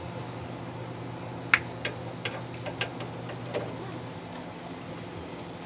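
Ratchet wrench clicking in short, irregular runs while tightening U-bolt nuts on a leaf-spring rear axle, the loudest click about a second and a half in.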